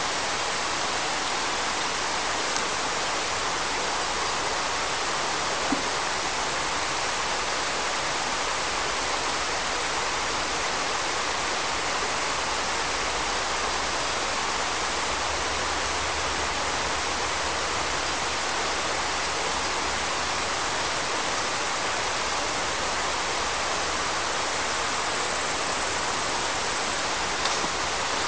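Mountain river water rushing steadily over stones: an even, unbroken hiss, with two faint ticks, one about a quarter of the way in and one near the end.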